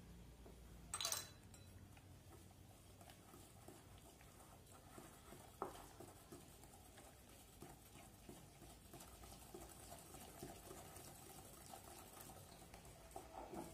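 Wire whisk stirring a thick icing-sugar and milk glaze in a glass bowl: faint, irregular soft ticking and scraping, with a short clatter about a second in.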